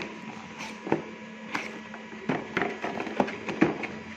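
Cardboard router packaging being opened: the box's end flap worked open and the cardboard inner tray slid out, giving a string of irregular scrapes, crackles and light knocks.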